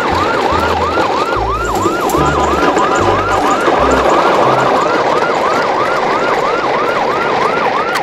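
Siren wailing in fast, even rising-and-falling sweeps, about three a second, over an uneven low throb.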